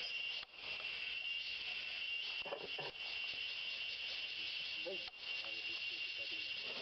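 Steady, shrill chorus of forest insects, a continuous high drone, cutting out briefly about half a second in and again about five seconds in.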